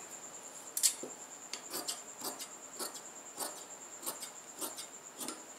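Large steel tailor's shears snipping through cloth in a string of short cuts, about two a second, cutting a rounded curve into folded fabric.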